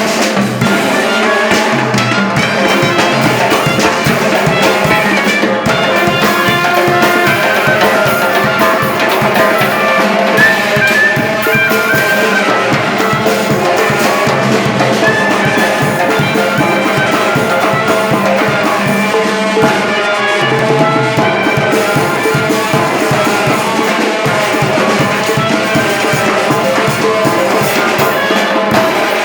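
Loud band music with a steady, fast drum-kit beat under several melody instruments.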